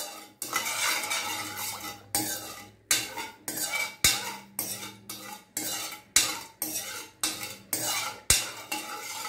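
Metal spoon stirring sugar and water in a stainless steel kadai, scraping and clinking against the pan in quick repeated strokes, about two a second, as the sugar dissolves.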